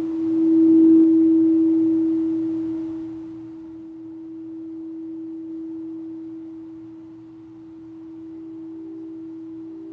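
A singing bowl ringing with one clear, steady tone that swells for about a second and then slowly fades with a gentle waver; a second, slightly higher tone faintly joins near the end.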